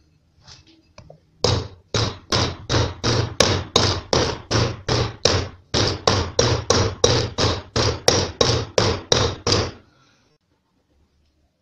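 Copper hammer striking a sealed ball bearing to drive it into the bore of a machined aluminium pulley. About twenty quick blows, a little under three a second, each with a short ring, with a brief break about halfway.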